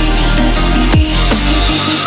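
Electronic dance music with a heavy bass line and a kick drum about once a second.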